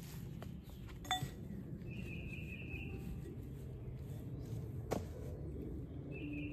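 Outdoor ambience with a steady low rumble. A cardboard box and trellis parts are handled: a brief ringing clink about a second in and a sharp tap about five seconds in. A short high buzz is heard twice.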